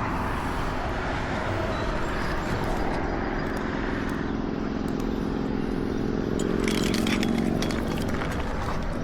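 An engine running steadily, with its hum clearest through the middle, and a quick run of clicks or knocks near the end.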